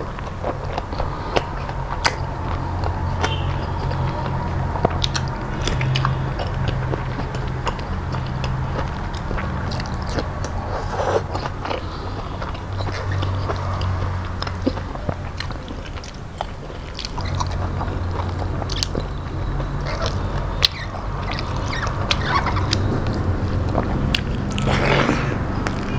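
Close-miked chewing and mouth sounds of a person eating rice and vegetable dishes by hand, with many short wet clicks and smacks, over a steady low hum.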